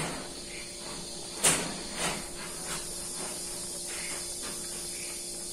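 A person eating with her fingers: chewing and small mouth noises, with one short sharp noise about one and a half seconds in and smaller ones just after, over a steady hum and hiss.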